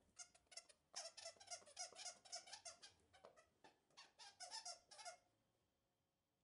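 A dog chewing the squeaker of a plush dog toy, setting off a quick run of short squeaks, several a second, that stops about five seconds in.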